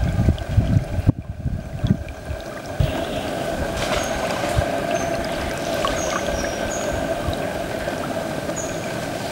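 River water running and splashing as toque macaques drop into and play in it, with uneven low thumps in the first few seconds and a few short high chirps from about four seconds in.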